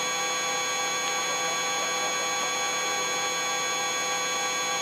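Eurocopter EC135 helicopter in cruise flight: a steady hum and whine of several unchanging tones from its turbines, gearbox and rotors, heard inside the cockpit on the live audio feed.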